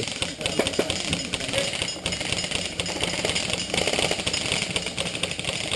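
Airsoft electric guns firing on full auto: a rapid, steady mechanical clatter that runs without a break.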